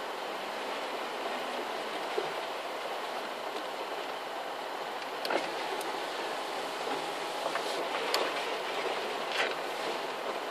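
A vehicle driving slowly over a rough grass field track, heard from inside the cab as a steady rumble and hiss. A few short knocks and rattles come in the second half, the loudest about five seconds in and again near eight seconds.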